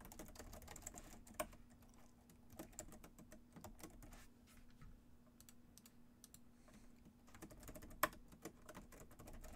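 Faint, irregular clicking of typing on a computer keyboard, with a couple of louder key strikes, over a low steady hum.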